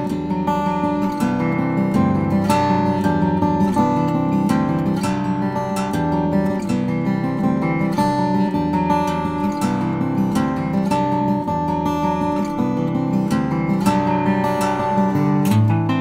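Solo Nightingale N400F 12-fret steel-string acoustic guitar, with exotic ebony back and sides, a sinker redwood top and 80/20 bronze strings, played fingerstyle. It plays a steady run of plucked notes over ringing, sustained bass notes.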